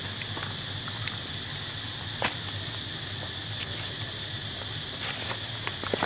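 Steady high-pitched insect chorus, with a few sharp clicks: the loudest about two seconds in and a small cluster near the end.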